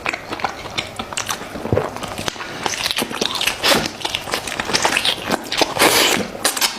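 A person biting and chewing chicken, close to the microphone: irregular clicks and mouth noises, with a few longer, louder bouts of tearing and chewing, the loudest near the end.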